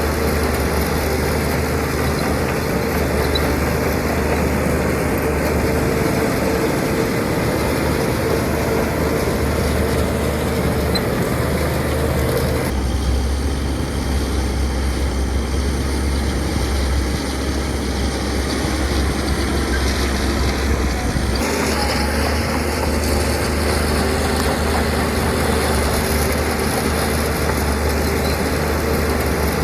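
Heavy diesel engines of earth-moving machinery running steadily. The sound changes abruptly twice, about 13 and 21 seconds in.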